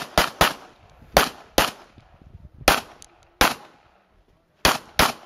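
Pistol shots from an IPSC competitor working through a stage: about nine sharp shots in quick pairs and singles, with short pauses between groups.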